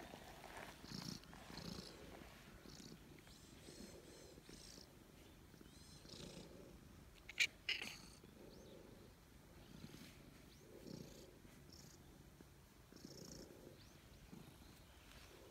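Calico cat purring while being stroked, the purr swelling and fading with each breath: a contented purr of pleasure at the petting. A couple of sharp clicks sound about halfway through.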